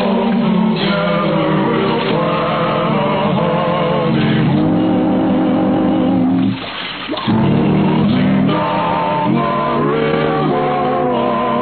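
A group of voices singing a slow song with wavering, vibrato pitch, with a short break about six and a half seconds in. The sound is that of an old radio broadcast recording, muffled with no highs above about 4 kHz.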